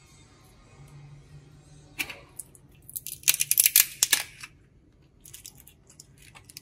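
Walnut shells being cracked and picked apart by hand: a sharp snap about two seconds in, then a quick run of loud brittle cracks and crackles, easing to a few small clicks near the end.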